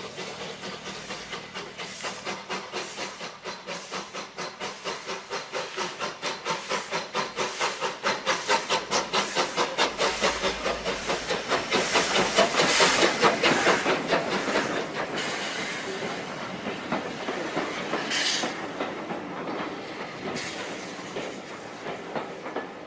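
A steam tank locomotive hauling a train of carriages runs past close by. A rhythmic beat grows louder to a peak about halfway through as the engine passes, then fades as the carriages roll by. A short hiss comes about three-quarters of the way in.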